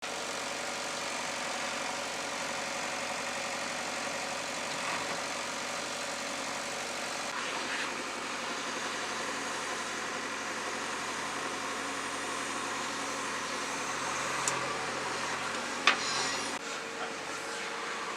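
JCB 3DX backhoe loader's diesel engine running steadily, with a single sharp metallic knock near the end.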